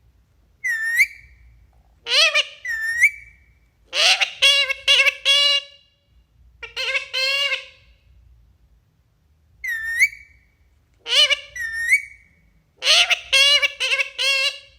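Talking parakeet calling out mimicked words, 'mummy' among them, in a string of short squawky calls and longer many-syllable phrases. The same sequence comes twice.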